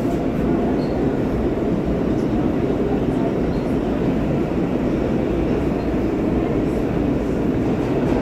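R143 subway car running at speed through a tunnel: a steady, loud rumble of steel wheels on the rails, with no change in pace.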